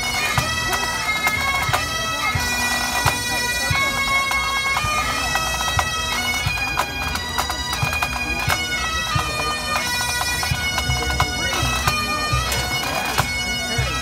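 Pipe band playing: Highland bagpipes sounding a steady drone under the chanters' melody, with drums beating time throughout.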